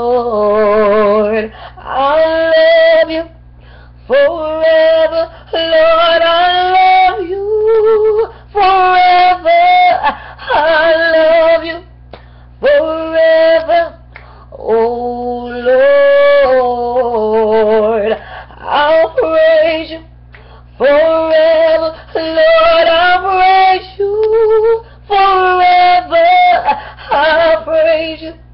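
A woman singing a slow worship song unaccompanied. She holds long notes with a wavering vibrato, in phrases of a few seconds separated by short breaks for breath.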